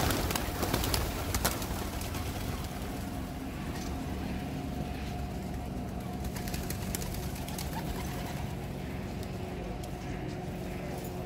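A flock of feral pigeons taking off together with a clatter of wingbeats at the start, a few more wing flaps in the next second or so, then a steady background hum.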